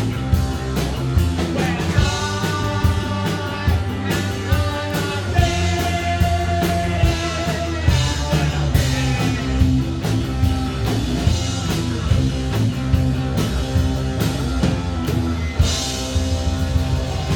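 Live punk rock band playing loudly: electric guitar, bass and drums, with singing at times.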